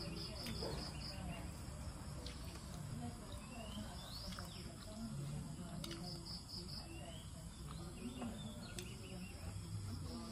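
Quiet outdoor ambience of insects chirping: a short, high pulsed trill near the start and again about six seconds in, among short rising chirps repeating every second or two.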